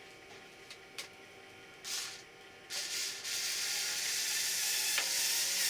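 Two short bursts of hiss, then a steady hiss of about two and a half seconds that cuts off suddenly, with a few faint clicks before it.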